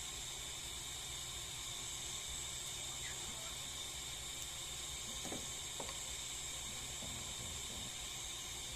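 Steady high-pitched hiss over a low hum, with a couple of faint small clicks a little past halfway, from hands working on the extension socket's contacts.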